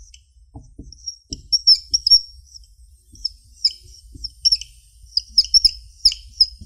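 Whiteboard marker squeaking on the board as Chinese characters are written stroke by stroke: many short, high squeaks in irregular runs, with a few soft knocks in the first second and a half.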